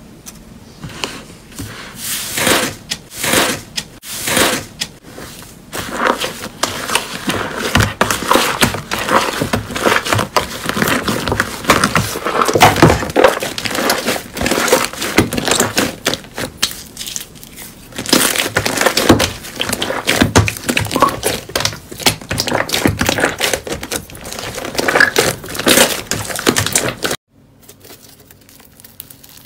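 Slime being pressed and squished by hand, giving dense crackling and clicking that swells and eases several times, then cuts off abruptly near the end.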